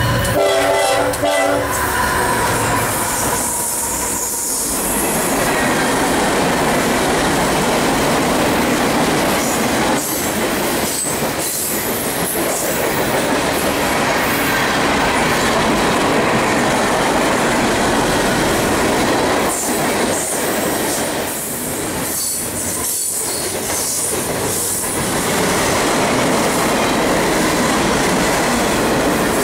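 Freight train passing close by: the diesel locomotive's horn sounds for the first two seconds or so, then the freight cars roll past with steady wheel noise on the rails and faint wheel squeals.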